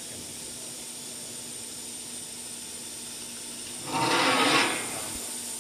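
Steady hum of a CNC metal-spinning machine's automatic loading cell. About four seconds in, a loud, rasping rush of noise lasting about a second comes from the suction-cup loader as it works the aluminium blank.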